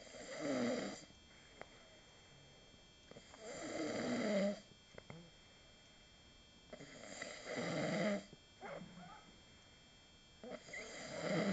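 Snoring in a slow, steady rhythm: four loud snores about three and a half seconds apart, each lasting around a second, with quieter breathing between them.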